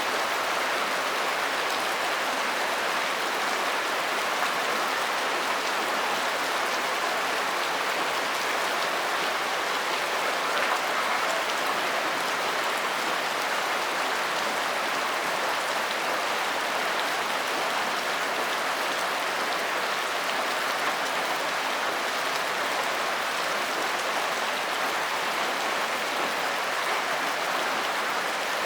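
Steady rain falling in an even hiss.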